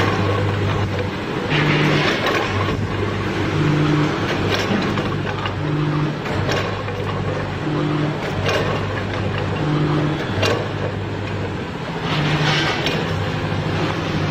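Frozen French fries packing machine running: a steady low electric hum with a short higher buzz and a click repeating about every two seconds as the machine cycles, and bursts of rattling hiss as frozen fries tumble through the chutes.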